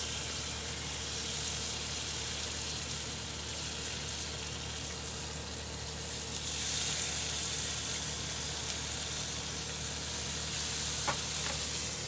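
Sauced chicken wings sizzling on the hot grate of a Big Green Egg kamado grill. The sizzle grows louder about six and a half seconds in, as more wings are laid back on.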